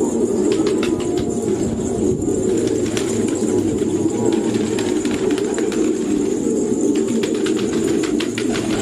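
A flock of fancy pigeons cooing all together in a dense, continuous low murmur. Scattered short clicks and wing flaps rise above it, busiest in the first half.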